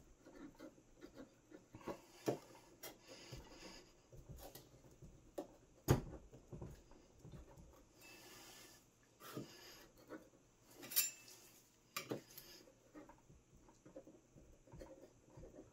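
Metal scraper blade prying and scraping cured resin prints off a resin 3D printer's build plate, where they are held fast. Irregular faint scrapes and clicks, with a sharper knock about halfway through and a few more near the end.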